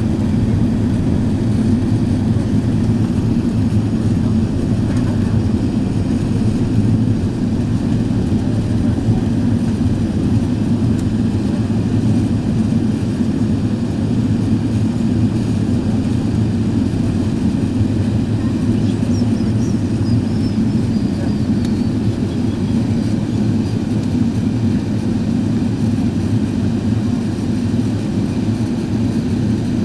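Steady low-pitched cabin noise inside an Airbus A380 on final approach: engine and airflow noise heard through the fuselage, even and unbroken.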